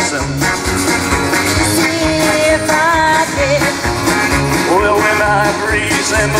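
Live country band playing: electric guitars, bass and drums with a steady beat.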